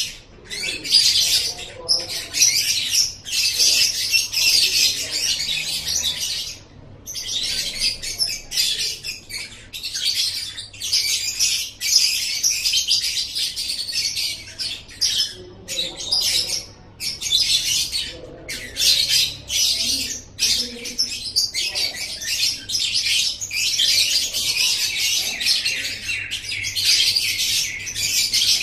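Lovebird ngekek: a long, rapid, high-pitched chattering song. It runs in long unbroken stretches with brief pauses, the clearest about six and a half seconds in.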